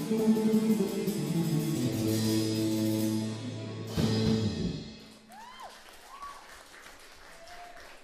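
Rock band of two electric guitars, bass guitar and drum kit holding a final chord that fades, then one last accented hit with a cymbal crash about four seconds in that rings briefly, ending the song. Faint applause follows.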